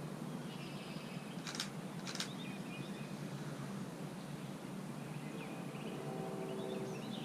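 Two quick camera shutter clicks about half a second apart. Faint bird chirps sound over a steady outdoor background hum.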